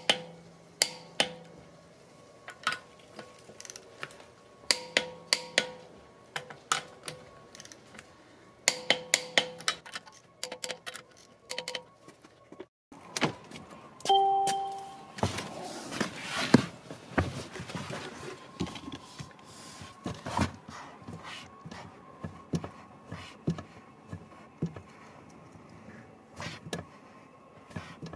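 Wrench on wheel lug nuts, clicking sharply in short bursts. After a break comes a two-note electronic car chime, a brief rushing noise, then a run of clicks and knocks inside the car.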